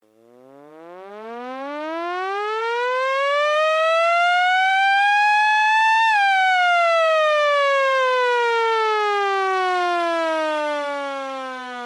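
A single siren-like tone that swells in and rises slowly in pitch for about six seconds, then falls slowly again.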